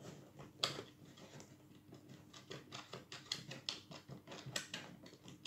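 Pliers gripping and working a bellows pin loose from the bellows frame of an old Hohner two-row melodeon: faint, irregular small clicks and scrapes of metal on metal and wood.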